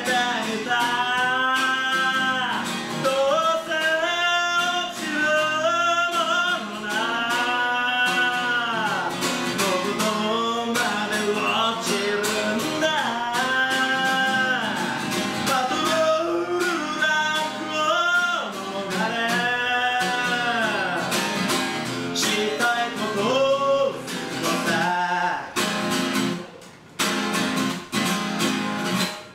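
Man singing a song, accompanying himself on a strummed acoustic guitar. The voice stops near the end, leaving guitar strums.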